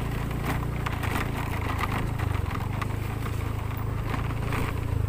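A small vehicle engine running steadily on the move, a low even hum with a fast fine buzz.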